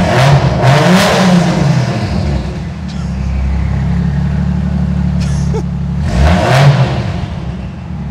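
Turbocharged Toyota 1JZ straight-six in a Mazda RX-8 revved through its exhaust: a few quick rises and falls in engine pitch in the first second and a half and again about six seconds in, idling steadily in between. The exhaust is loud, which the owner finds way too loud for daily driving.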